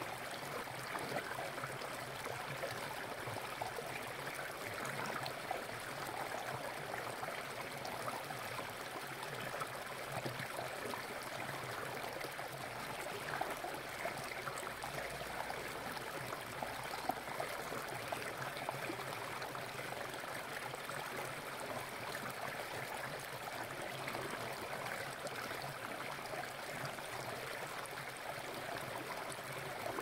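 Small forest waterfall splashing and trickling steadily.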